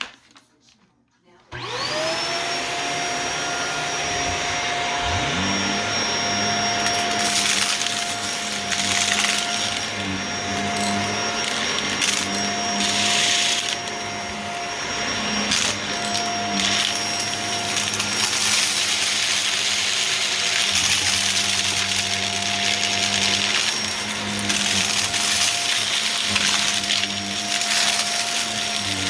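Vacuum cleaner switched on about a second and a half in, its motor whine rising to a steady pitch, with a second, lower motor tone spinning up a few seconds later. It then runs steadily, with irregular bursts of crunching and rattling as it picks up grit and debris.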